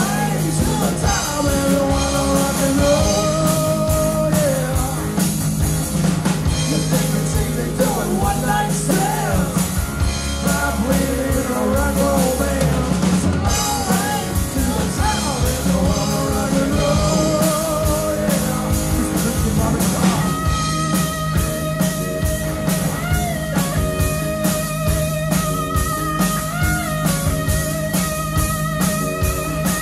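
Live rock band playing: electric guitar, bass guitar and drum kit with a male lead vocal. About two-thirds of the way through the singing stops and an instrumental passage led by the electric guitar takes over.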